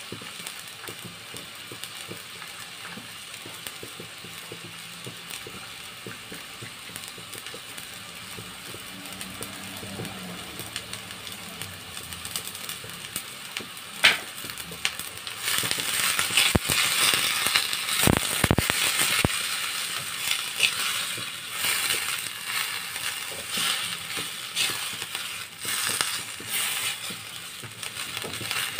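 Vegetables sizzling in a stainless steel wok with a steady hiss, then a sharp knock about halfway, after which a spatula scrapes and clatters against the pan as the broccoli and carrots are stir-fried.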